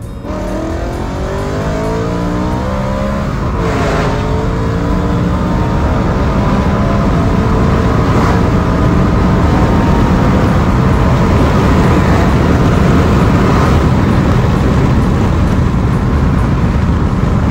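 BMW M3 E92's 4.0-litre V8 accelerating hard, heard from inside the cabin. The engine note climbs, drops at an upshift about four seconds in, climbs again to a second upshift about eight seconds in, then holds steady at high speed under loud road and wind noise.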